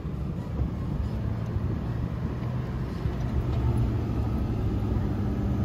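A motor vehicle driving, its engine running steadily under a continuous low rumble.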